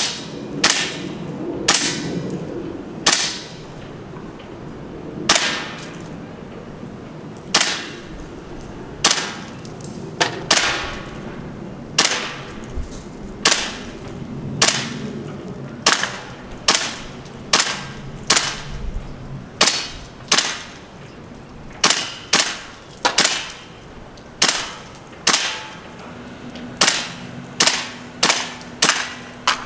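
WE SCAR gas-blowback airsoft rifle firing single shots, each a sharp crack with the bolt cycling, about thirty in all. The shots come every second or two at first and speed up to about two a second in the last few seconds.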